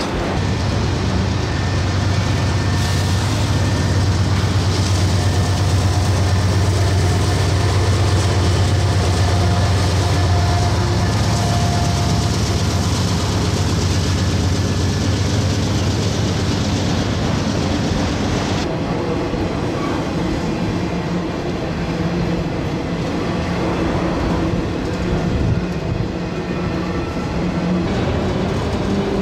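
Freight train of autorack cars rolling past: a steady rumble and rattle of steel wheels on rail and clattering car bodies. A high hiss over it stops abruptly about two-thirds of the way through.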